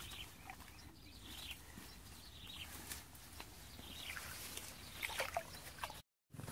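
Faint rustling and small snaps of leaves and twigs as someone moves through dense bushes, with a few faint bird-like chirps. The sound cuts out abruptly for a moment near the end.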